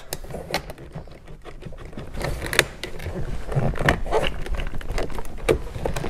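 Plastic door trim strip and its metal retaining clip being handled and worked loose from a BMW F10 rear door panel, giving irregular small clicks and taps over a low rustle of handling, the sharpest click about two and a half seconds in.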